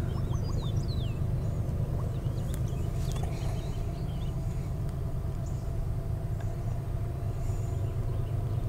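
Low, steady rumble of the approaching freight train's diesel locomotives, still out of sight. A bird chirps briefly in the first second.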